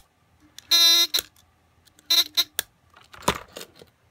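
Electronic buzzer of an Operation keychain game going off as the tweezers touch the metal edge: one half-second buzz just under a second in, then two short buzzes a little past two seconds in. Small plastic clicks and a knock come between the buzzes.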